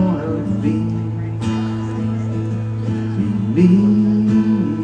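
Acoustic guitar strummed in a live song performance, with a melody note that slides up and is held for about a second near the end.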